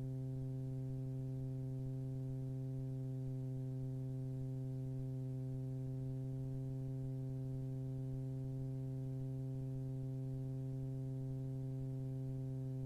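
Steady low electrical hum with a stack of even overtones in the aircraft's intercom audio feed, with no voice on the line. The engine and wind noise are not heard.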